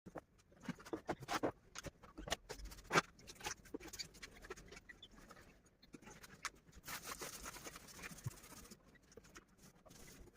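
Irregular scratching and tapping from pet birds moving about, with a brief rustle about seven seconds in.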